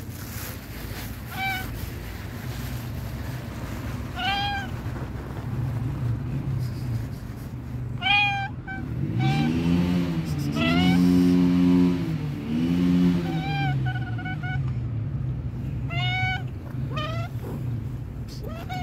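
Young tabby cat meowing again and again in short, high meows, some in quick pairs. Beneath them runs a low steady hum, which in the middle swells and rises and falls in pitch three times and is the loudest sound.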